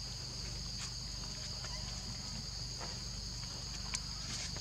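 Steady, high-pitched chorus of insects in the forest, an unbroken shrill drone, with a few faint ticks and a sharp click about four seconds in.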